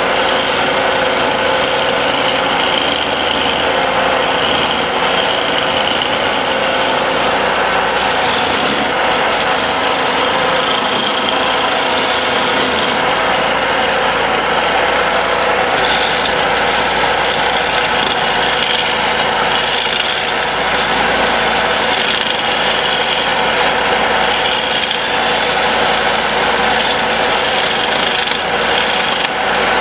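Wood lathe running while a tool rubs against the spinning wooden pestle blank, making a steady, loud rasping over the motor's hum.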